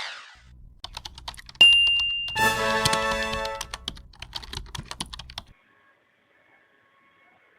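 A quick run of sharp clicks like typing, with a short high beep and a brief ringing electronic chime in the middle, stopping abruptly after about five seconds.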